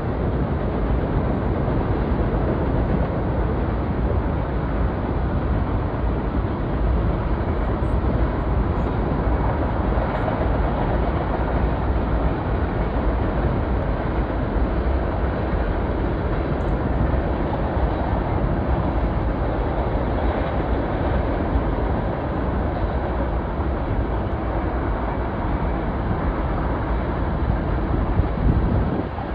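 BNSF freight train rolling across a high bridge over a gorge, a steady rumble of the passing cars that swells slightly just before the end.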